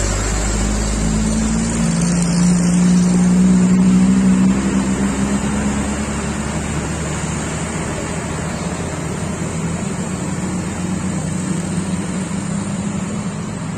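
Heavy diesel truck engines pulling hard under load up a steep hairpin climb, with a low, steady engine note that is loudest a few seconds in and then eases into steadier traffic noise as motorcycles and a car follow.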